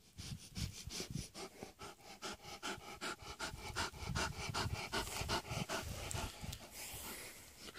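A young Central Asian Shepherd Dog panting rapidly and evenly through its open mouth, about four to five breaths a second, winded after play.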